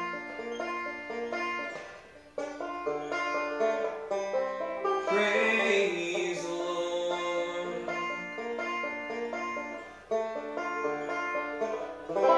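Solo resonator banjo picked in a quick run of plucked notes, an instrumental passage with no singing, in a bluegrass style.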